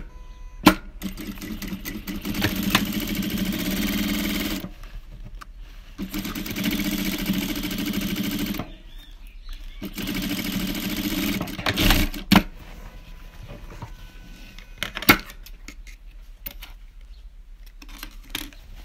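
Electric sewing machine stitching in three runs of a few seconds each, topstitching the binding on a quilted placemat. Between the runs come a few sharp clicks from handling the machine and fabric.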